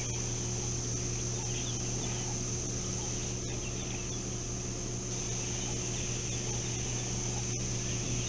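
Helmeted guineafowl flock giving short, repeated chirping calls while foraging, over a steady electrical hum and high whine from the camera's audio.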